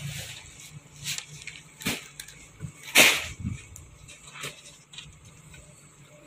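Empty plastic crates knocking and clattering as they are handled and loaded into the back of a van: a few short knocks, the loudest clatter about three seconds in.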